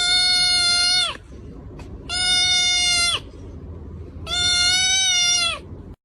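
An animal calling three times. Each call is a long, steady-pitched cry of about a second that drops in pitch at its end, over a low background rumble.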